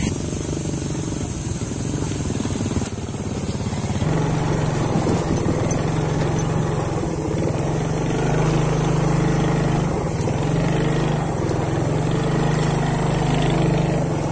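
Small motor scooter engine running steadily as the scooter is ridden along a dirt track, getting louder about four seconds in.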